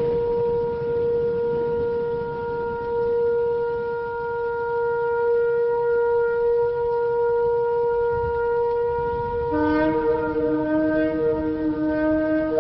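A shofar holding one long, steady note. About nine and a half seconds in, a second, lower-pitched shofar note joins and sounds with it.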